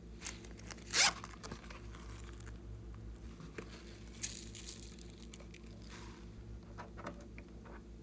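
Zipper on a green cactus-shaped pouch pulled in one quick rasping stroke about a second in, with a second shorter zip-like rasp near four seconds. Light handling clicks follow near the end.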